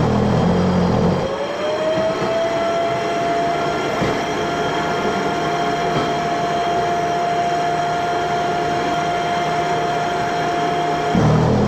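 Electric concrete floor grinder running steadily on tile adhesive, with a steady whine. The whine sags in pitch and gains a heavier rumble right at the start and again near the end, then climbs back as the motor recovers from the load.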